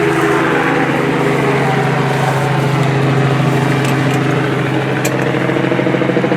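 An engine running with a loud, steady drone.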